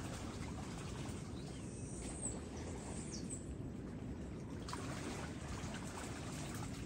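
Shallow water sloshing and lapping around people wading, heard as a steady low rumbling noise. A few faint, high bird chirps come about two to three seconds in.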